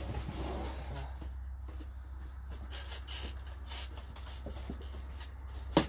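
Rustling and scraping of a cardboard pigeon shipping box being handled and opened by hand, with small clicks and one sharp knock near the end, over a steady low hum.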